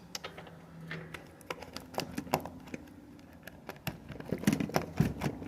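Irregular clicks and knocks as the wire plugs under an upside-down dishwasher are handled and tugged, with a louder cluster of knocks about four and a half seconds in.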